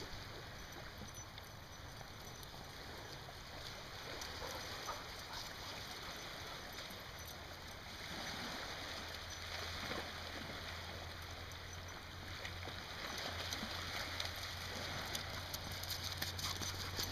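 Quiet, steady wash of small waves lapping on a pebbly shore. A few light clicks and taps come in near the end.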